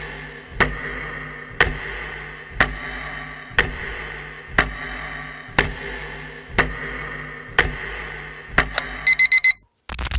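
Clock-style countdown timer sound effect: a tick about once a second for nine seconds, ending in a quick burst of high electronic alarm beeps.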